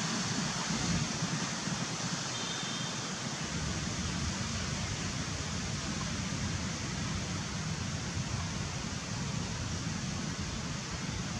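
Steady, even outdoor background hiss with no distinct event, and a brief faint high tone a little over two seconds in.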